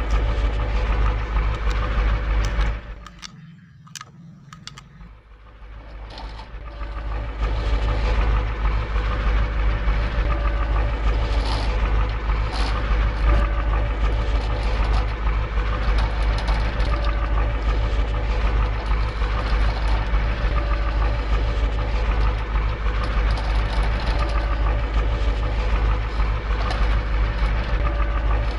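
Steady heavy truck-engine rumble, as played for a remote-control toy dump truck. It drops away about three seconds in and swells back to full level over the next few seconds.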